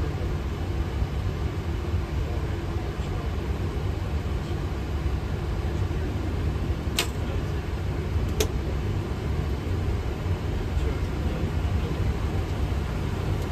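Steady low rumble of a Boeing 737-800 flight deck while taxiing. Two short clicks sound about halfway through, a second and a half apart.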